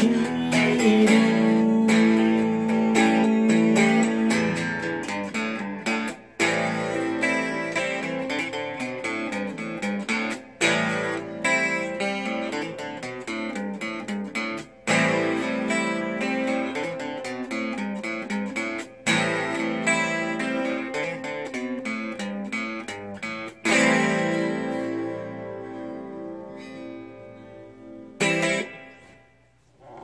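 Semi-hollow electric guitar strumming chords as the song's closing instrumental. There is a brief gap about every four seconds. The playing thins out in the last few seconds, ending with one final strum that rings away.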